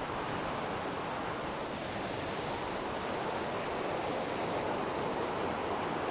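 Steady rushing of the Spokane River's whitewater rapids, an even noise with no breaks.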